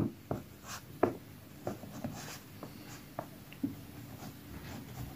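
Ballpoint pen writing on a paper workbook page: a run of short, separate pen strokes across the paper, the first one at the very start the sharpest.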